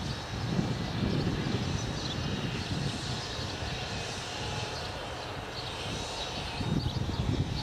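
Low rumbling outdoor background noise with no clear single source, swelling in gusts about half a second in and again near the end.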